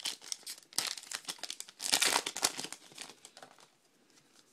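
Plastic wrapping on a trading-card pack crinkling and tearing as it is ripped open by hand. The crinkling is loudest about two seconds in and dies away after about three seconds.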